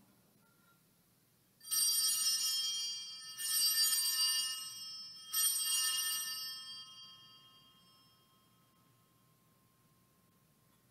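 Altar bells rung three times about two seconds apart, starting about a second and a half in, the last ring fading out over a couple of seconds. They mark the elevation of the chalice just after the consecration.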